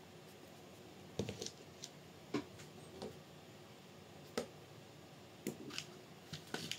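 Light metallic clicks and knocks of small metal parts being handled, about ten spread unevenly: a side gearbox mount being set onto chassis bolts.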